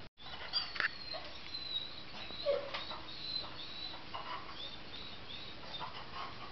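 Dogs giving scattered short barks and whines, with thin, high bird chirps over them. The sound drops out briefly at the very start.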